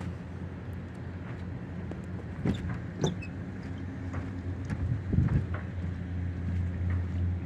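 A steady low machine hum, with a few short knocks and clicks in the middle.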